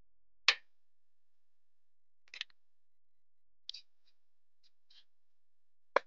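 Red clay bricks knocked together and set down on a hard earth floor: a few sharp clacks, the loudest about half a second in and another near the end, with fainter ticks and scrapes between.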